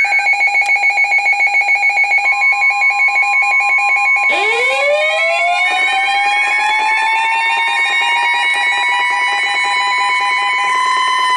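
Emergency weather-alert alarms sounding together: a rapid electronic beeping, about four beeps a second, is joined about two seconds in by a steady alert tone, and about four seconds in by a siren tone that winds up in pitch and holds high. They signal an incoming weather warning.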